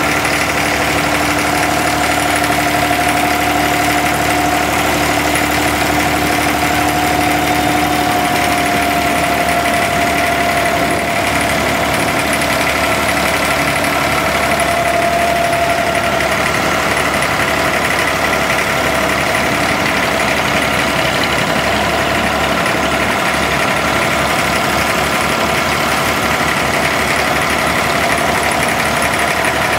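Inboard diesel engine of a wooden abra water taxi running steadily under way, a continuous droning hum whose pitch drifts slightly and evenly.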